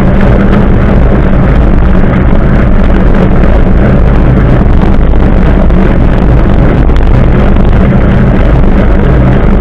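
Steady wind rushing over the microphone of a bicycle-mounted camera while riding, mixed with the tyre rolling on asphalt; loud and unbroken.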